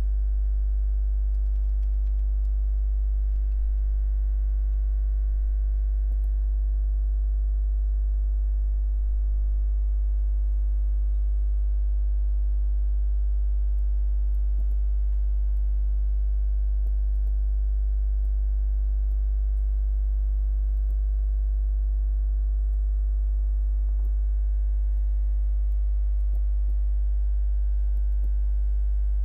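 Steady electrical mains hum: a loud low tone with a stack of overtones that stays unchanged throughout, with a few faint clicks scattered through it.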